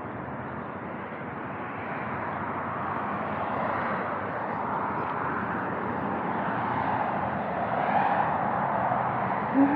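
Outdoor street traffic: a steady rush of passing vehicles that swells gradually, loudest near the end.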